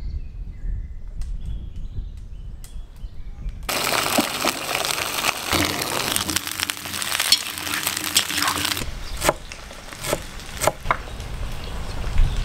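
Small whole potatoes tipped into hot oil in a cast-iron kazan, sizzling loudly for about five seconds from a few seconds in. Then a few sharp knocks of a knife cutting on a board.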